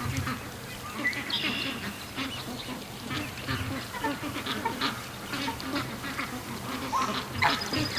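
A flock of domestic ducks quacking and chattering, many short calls overlapping, as they walk home.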